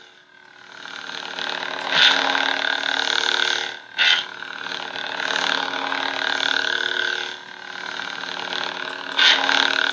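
Electronic lightsaber hum from the Count Dooku hilt's sound module, switched on with its blade fitted: a steady droning hum that swells and fades, with sharp louder surges about two, four and nine seconds in.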